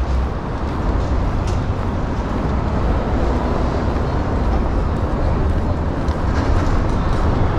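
Steady rumble of city road traffic heard from a busy sidewalk, an even noise with a strong low hum and no single vehicle standing out.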